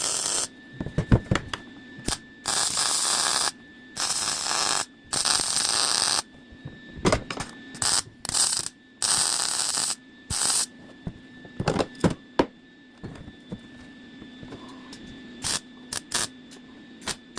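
MIG welder laying plug welds into a sheet-steel repair panel, in about five bursts of arc noise of one to two seconds each that start and stop abruptly. Several sharp clicks follow in the second half over a steady hum.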